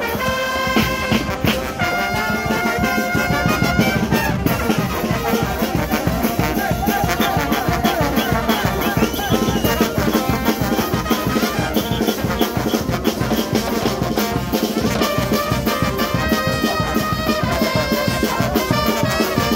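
A charanga brass street band playing: trumpets, trombones and saxophone holding notes together over a steady bass drum beat.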